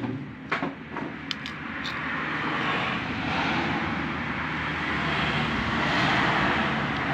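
A road vehicle passing close by, its noise swelling to a peak and then easing off. A few short clicks sound in the first two seconds.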